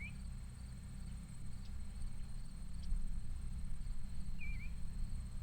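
Outdoor field ambience: a steady low rumble, a small bird's short dipping chirp twice, at the start and about four and a half seconds in, and faint high insect chirping pulsing evenly throughout.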